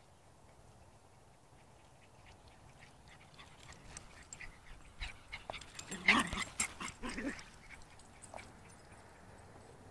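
Small dog barking and yipping in a short burst about six to seven seconds in, with scattered rustling and clicks before it.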